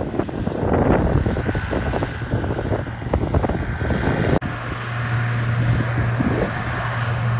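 Gusty wind noise on the microphone over a vehicle for about four seconds. After a sudden cut, a vehicle engine drones steadily at a low pitch.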